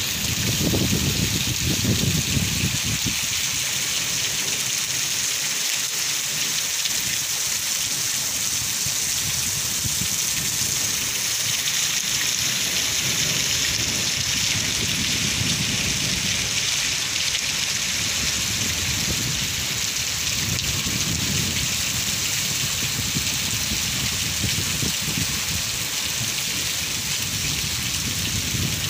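Heavy rain falling steadily on fields and muddy ground, an even, unbroken hiss of a downpour.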